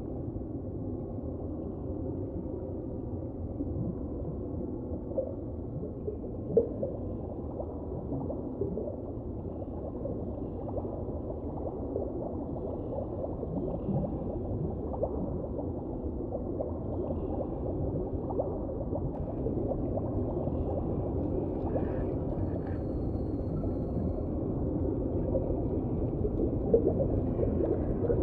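Muffled underwater noise picked up by a GoPro sealed in its waterproof housing, with nothing heard above a low rumble and hiss, and scattered faint clicks.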